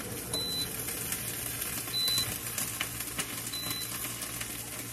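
Pasta chips sizzling and crackling as they are laid into a preheated air fryer basket: a steady hiss with scattered sharp pops.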